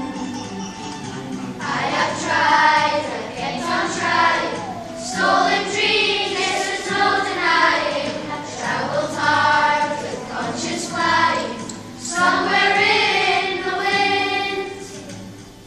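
A children's choir singing a song in unison, in phrases of held notes with short breaks between them.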